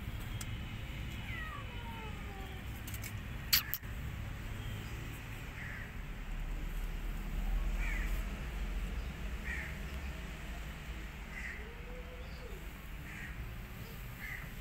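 A kitten meowing a few times in the first couple of seconds, each call falling in pitch. A single sharp click comes about three and a half seconds in, then short bird calls repeat every second or two.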